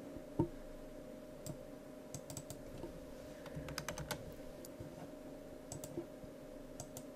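Scattered faint clicks and taps of a computer mouse and keyboard, some single and some in quick runs, over a steady low hum.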